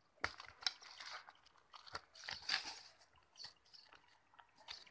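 Hands digging and scraping through dry soil, stones and debris, making irregular crunches, scratches and sharp clicks. The busiest crunching comes in the middle.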